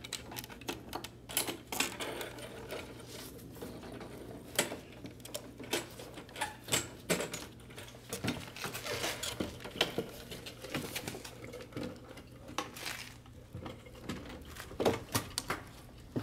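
Irregular hard plastic clicks, taps and rattles of a fuel pump assembly being handled and worked down into the opening of a plastic fuel tank.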